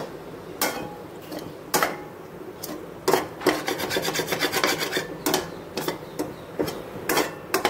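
Steel spoon scraping and stirring cooked brown rice and vegetables in a stainless steel kadai: irregular rasping strokes of metal on metal, thickest around the middle.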